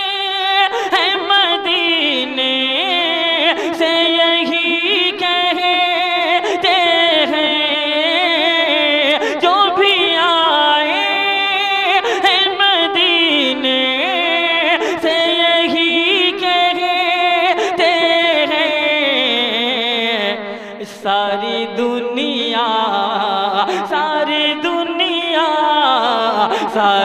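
A male voice singing a naat, drawing out one verse in long, held melodic phrases with ornamented runs, and a short breath break about twenty seconds in.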